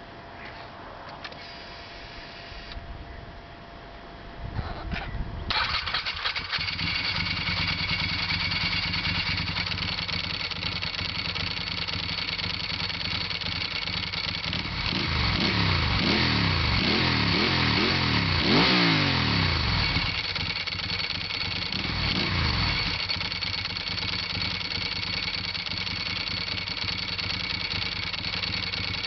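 Ducati 748 S's 90-degree V-twin, breathing through carbon 45mm Termignoni slip-on mufflers, starts about five seconds in and settles into idle. Around the middle it is revved several times in quick succession, with one more rev a little later, before dropping back to a steady idle.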